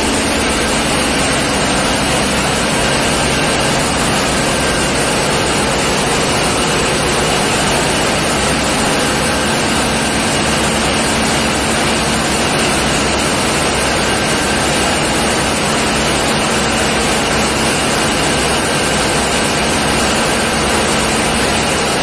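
Loud, steady running noise of a tugboat's diesel engine room, a dense even drone with a faint steady hum under it. The live switchboard shows the generator sets are running.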